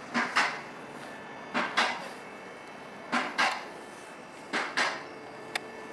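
Short metallic clinks in pairs, about every second and a half, from a hand wrench working the bolts that hold a motorcycle's swingarm chain slider.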